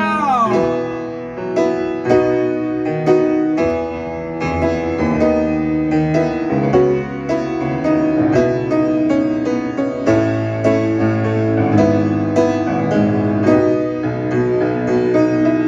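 Piano playing an instrumental passage of chords over a steady bass line, with a new note or chord struck about every half second.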